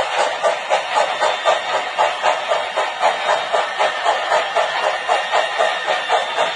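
Model railway steam-hauled passenger train running past, with a steady rhythmic beat of about three pulses a second.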